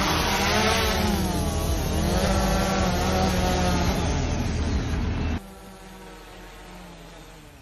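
DJI Mavic 3 drone's propellers whining close by, their pitch rising and falling together over a low rumble as it hovers and settles on a landing pad. About five seconds in the sound cuts off abruptly to a much quieter, fainter drone hum.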